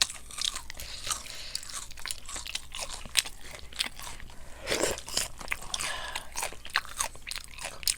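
Crunchy bites and chewing of Kyochon fried chicken close to the microphone, a dense run of irregular crackles with one heavier bite about five seconds in.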